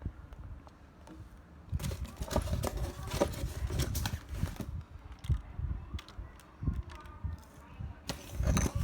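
Packaging being handled and opened by hand: an irregular run of clicks, knocks and crinkles, busiest from about two to five seconds in, with a few low thumps.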